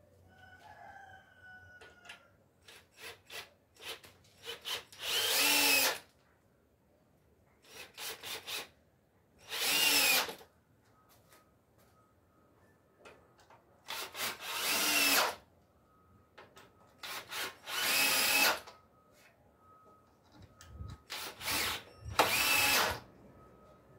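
Cordless drill working into wooden bench slats. It runs in five spells, each a few short trigger taps followed by a loud run of about a second.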